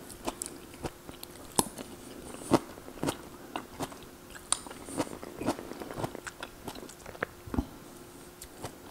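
Close-miked chewing of a forkful of mixed vegetables with zucchini, with sharp, irregular crunches and clicks from the mouth.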